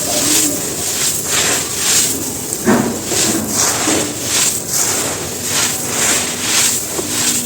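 Chunks of dry cement being crushed and crumbled by hand, a gritty crunching that comes in about two waves a second, with one sharper crack near the middle.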